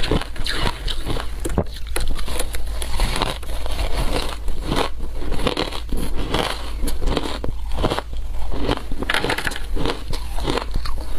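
Shaved matcha ice being bitten and chewed close to a clip-on microphone: a continuous stream of loud, irregular crackling crunches.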